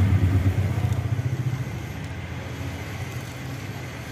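A motor vehicle engine running in the street, loud at first and fading away about a second and a half in, over steady traffic noise.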